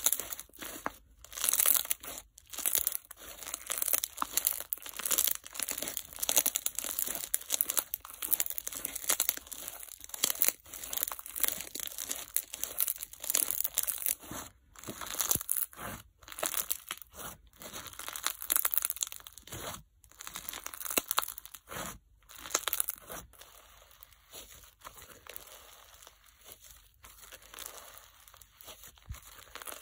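Hands squeezing and kneading a crunch slime packed with bingsu beads and microbeads, giving an irregular stream of crackling and popping. The crackle grows sparser and quieter over the last several seconds as the slime is stretched out flat.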